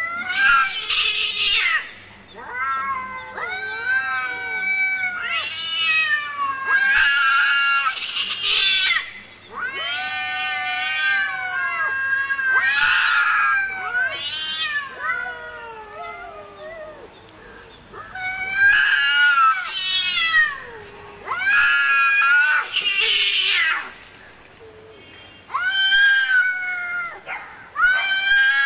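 Angry cat yowling: a string of long, wavering, drawn-out meows one after another, with short breaks between them.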